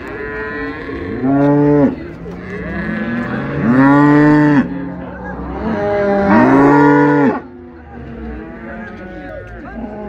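Cattle mooing: three long, loud moos a couple of seconds apart, each rising and then falling in pitch, and a fainter moo near the end.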